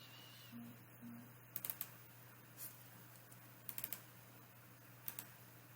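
Faint clicking of a computer keyboard and mouse, in short clusters of two or three quick clicks with a few softer single knocks between them, over a steady low hum.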